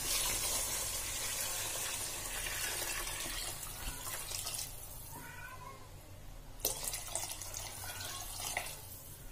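Water poured in a stream into a steel pot of hot prawn masala, splashing into the sauce. The pouring noise fades over the second half, and a single sharp knock comes about two-thirds of the way through.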